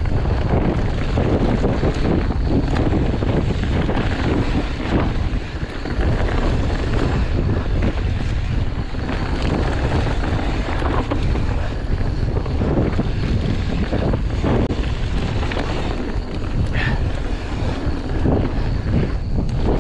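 Wind buffeting the microphone over a mountain bike rolling fast down a loose gravel trail: tyres crunching and sliding on dirt and stones, with irregular knocks and rattles from the bike over bumps.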